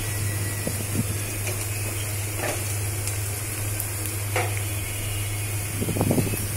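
Sliced onions and whole spices sizzling in mustard oil in a non-stick pan, over a steady low hum. A wooden spatula scrapes and taps the pan now and then, most busily about six seconds in.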